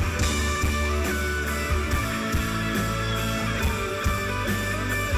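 Rock band music with electric guitar over a steady bass and drum beat: an instrumental passage between sung lines.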